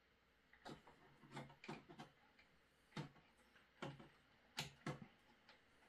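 Faint, irregular clicks and taps, about eight in a few seconds, from a hex key and small metal screws being worked out of a 3D printer's shipping restraints.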